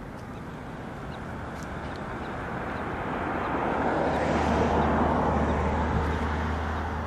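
A vehicle driving past: its noise swells to a peak about four to six seconds in and then starts to fade, with a low steady engine hum under it at its loudest.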